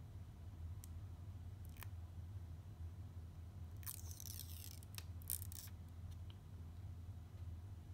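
Plastic handling noises from a GoPro Hero 8 Black camera being turned over in the hands: a few faint clicks, then two short scraping, rustling bursts about four and five seconds in. A steady low hum runs underneath.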